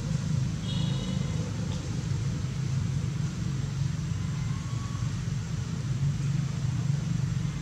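Steady low rumble, with a brief high chirp about a second in.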